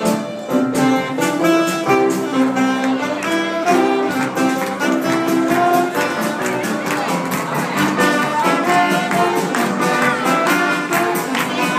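A small band playing live: violins, trumpet and saxophone over a drum kit and upright piano, with a steady beat.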